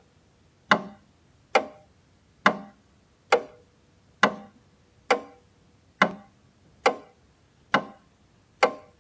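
Slow, even ticking: ten sharp ticks about 0.9 seconds apart, each with a short ringing tail.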